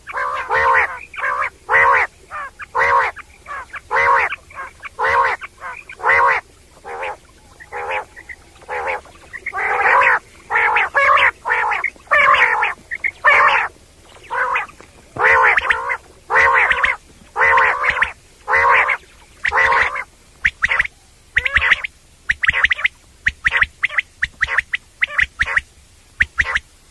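Common quail calling: a long series of short calls, each a stack of tones, repeated about twice a second in uneven runs with brief pauses.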